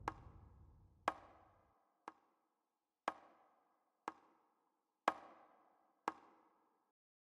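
Seven sharp percussive clicks, one each second, each with a brief ringing tail; they alternate between louder and softer strikes. The last of a low musical rumble dies away under the first two.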